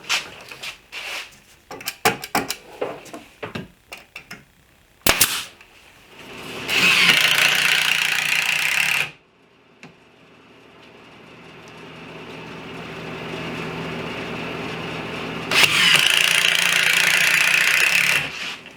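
Knocks and clicks of wood panels and parts being handled, then a power tool running loudly twice, each run about three seconds, the first cutting off suddenly.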